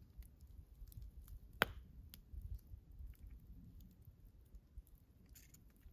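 Faint clicks and handling of a small plastic sauce cup and a knife as garlic aioli is spread onto a fish taco, with one sharp click about a second and a half in.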